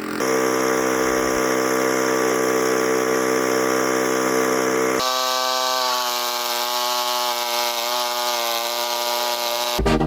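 Chainsaw running at high revs, cutting through a log at a steady pitch. About halfway through the sound changes abruptly, and the pitch then wavers slightly as the saw works under load.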